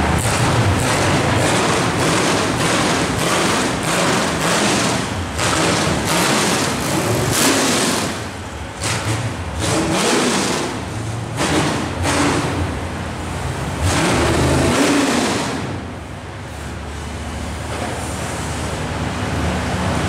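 A vehicle engine running steadily, with frequent knocks and rattles over it. The engine sound drops away about eight seconds in and returns for the last few seconds.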